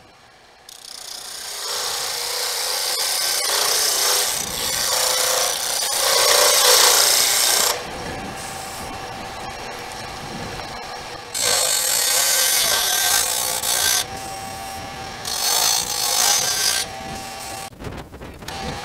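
A turning tool cutting into a spinning hardwood duck-call blank on a wood lathe, likely a small lanyard groove. It makes a high scraping hiss in passes, easing off briefly between cuts.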